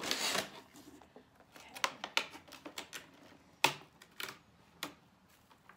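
Light clicks and taps of hard plastic packaging and a clear plastic propagation box being handled during unpacking, after a brief rustle at the start; five or six separate clicks, the sharpest about two-thirds of the way through.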